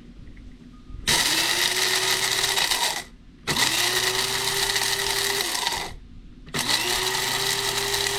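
Krups electric coffee grinder run in three short pulses of about two seconds each, grinding dried peppers and their seeds into powder. Each pulse spins up, runs steady, and winds down.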